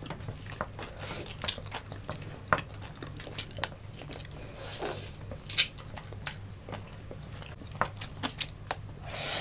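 Close-miked eating sounds of ripe mango and rice eaten by hand: wet lip smacks, sucking and chewing, with scattered small clicks and taps. A low steady hum runs underneath.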